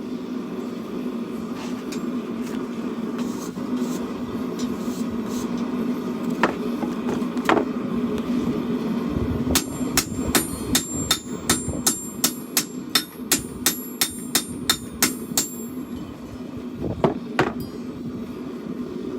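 Hand forging hammer striking hot steel on an anvil while a knife blank is shaped. A few single blows come first, then a steady run of about three ringing blows a second for some six seconds, then two more near the end, all over a steady hum.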